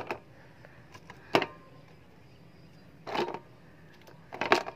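Plastic clothespins clicking and rattling against each other a few times as a chain of them is handled, with a couple of brief vocal sounds from a small child.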